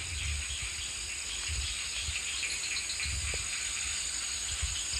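A steady chorus of forest insects trilling high and unbroken, with uneven low rumbles of wind on the microphone underneath.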